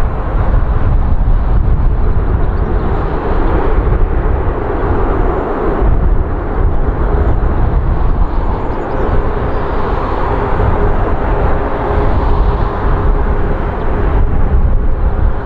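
Airbus A330neo's Rolls-Royce Trent 7000 jet engines running during landing, a steady rush with a faint held tone, under heavy, gusting wind rumble on the microphone from a strong headwind.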